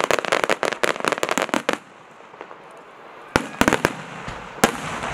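Aerial fireworks: a rapid volley of sharp cracking bangs for about two seconds, then a short lull. A few louder single bangs follow, the last trailing off into a fizzing crackle.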